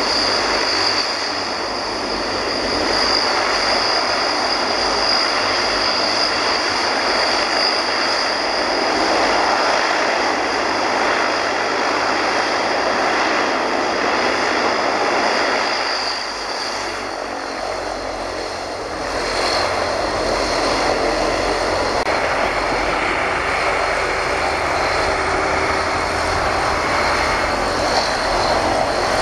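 The Rolls-Royce Tyne turboprops of a Transall C-160 running on the ground: a steady propeller drone with a high turbine whine that fades about two-thirds of the way through. A heavier low rumble joins later as a truck passes close by near the end.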